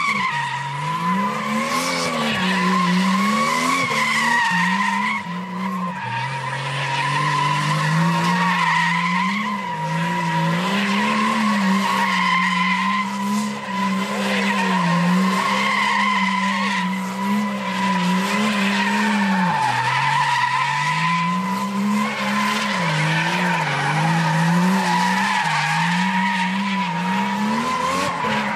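R32 Nissan Skyline with an RB30DET turbocharged straight-six doing donuts, its rear tyres screeching steadily as they spin. The engine is held at high revs, rising and falling every second or two throughout.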